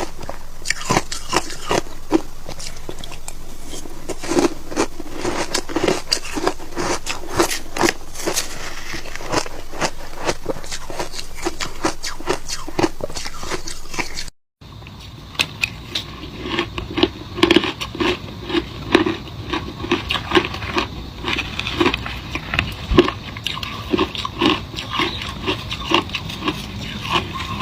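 Close-up crunching of passion fruit shaved ice being bitten and chewed, many irregular crunches in quick succession. The sound cuts out briefly about halfway through, and after that the crunching is duller.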